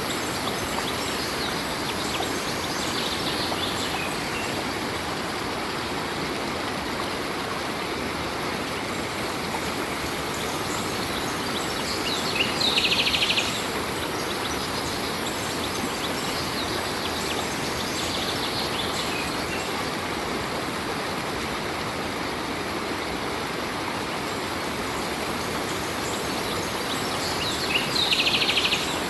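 A stream's flowing water, steady throughout. Four short bursts of bird chirping break through it; the two loudest come about halfway through and near the end.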